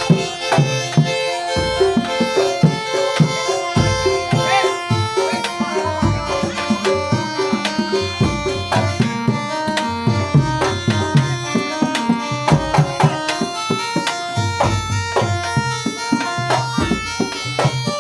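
Traditional Javanese folk-dance music: hand drums beating a quick, busy rhythm under a steady melody line.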